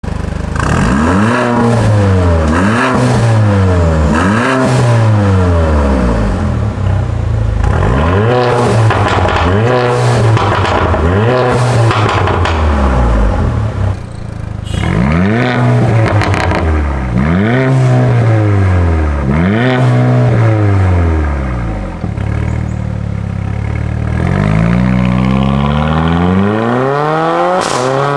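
Mercedes-AMG GLA45's turbocharged 2.0-litre four-cylinder breathing through a Fi Exhaust valvetronic catback with the valves open, blipped in a long run of quick free revs, each rising and falling, one every second or two. Near the end it settles briefly, then the pitch climbs steadily as the car pulls away under acceleration.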